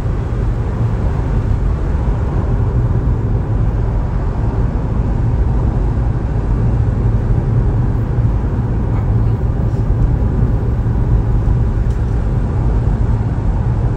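Steady low rumble of road and engine noise from a moving car, heard from inside the cabin.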